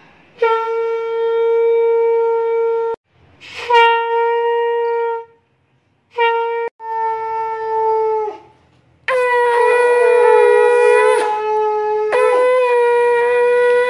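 Conch shell (shankha) blown for the evening prayer, in three long steady blasts with short breaks between them. From about nine seconds in, two conches sound together at slightly different pitches, louder.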